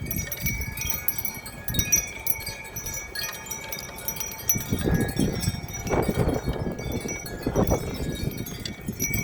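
Wind chimes ringing steadily in strong wind, several metal tones sounding together. Under them, gusts buffet the microphone in low rumbles that swell about five, six and seven and a half seconds in.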